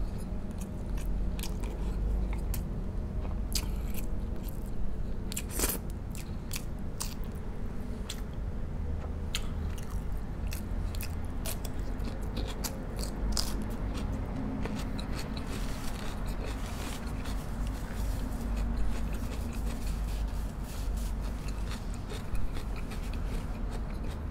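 A person biting and chewing pork spare ribs braised in coconut water, close to the microphone, with many short sharp mouth clicks scattered throughout.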